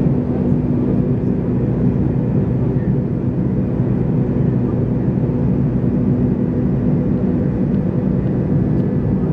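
Cabin noise inside a McDonnell Douglas MD-83 climbing out after takeoff: a steady drone from its tail-mounted Pratt & Whitney JT8D engines and the rush of air past the fuselage, with a low hum held on one pitch.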